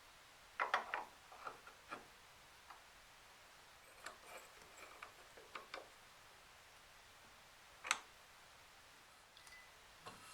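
Scattered light clicks and taps of small parts being handled on a workbench: a quick cluster of them just under a second in, softer ones here and there, and one sharp click near eight seconds.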